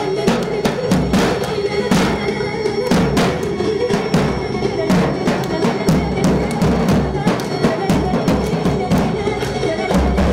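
A davul, the large double-headed folk bass drum, beaten in a fast, even rhythm of sharp strokes over deep booms.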